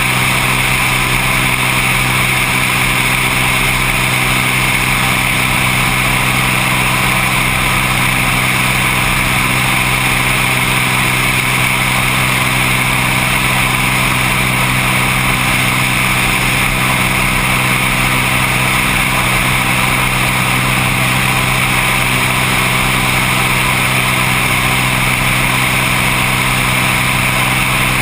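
Seaplane's piston engine and propeller droning steadily at constant power, with no change in pitch or level.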